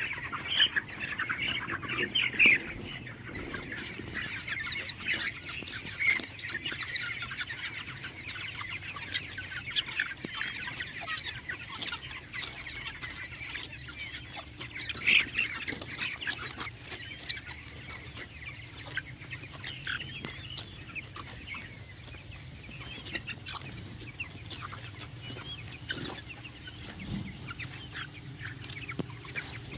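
Desi chickens clucking and calling continuously, many short overlapping calls with a few louder ones about two, six and fifteen seconds in.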